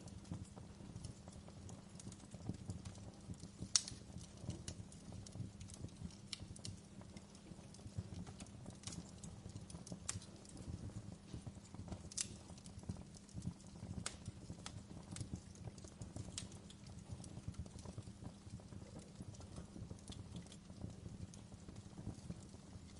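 Wood fire crackling with irregular sharp pops over a low, steady rumble, two pops louder than the rest about 4 and 12 seconds in.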